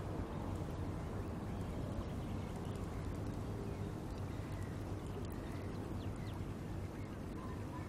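Estuary field-recording ambience: a steady low rumble with a faint hum, and a few faint, short bird calls over it.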